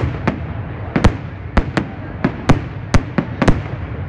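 Aerial fireworks display: sharp bangs of shells bursting at irregular intervals, about two or three a second, over a steady background din.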